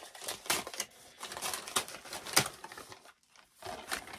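Wrapping paper crinkling and tearing as a parcel is unwrapped by hand, in irregular rustles with a short pause about three seconds in.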